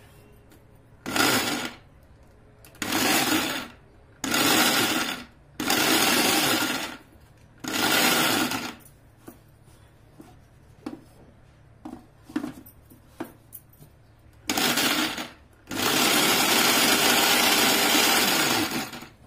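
Electric mixer grinder with a stainless-steel jar pulsed in short runs of about a second each, blending mango pieces and sugar into puree. In the middle come a few light knocks and clicks as the jar is handled, and then two more runs, the last about three seconds long.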